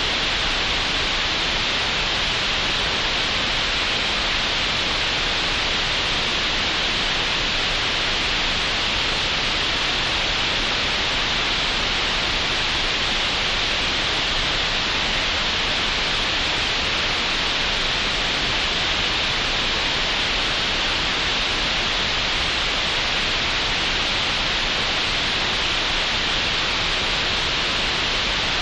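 Computer-generated green noise: a steady, even hiss that never changes, strongest in the upper-middle range.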